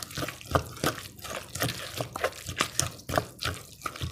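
Wooden pestle and spoon working a wet, mashed tomato-and-chili paste (jaew) in a mortar: irregular wet knocks and stirring, about three a second.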